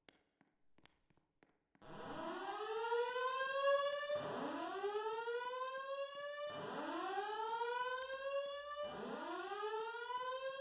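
Fire alarm evacuation signal from the building's voice evacuation speakers: from about two seconds in, a loud rising sweep tone that climbs quickly and levels off, repeating about every two and a half seconds.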